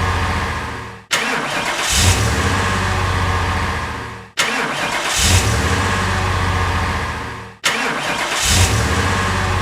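A car engine being cranked and firing up, then dying away, as a short sound effect repeated about every three seconds.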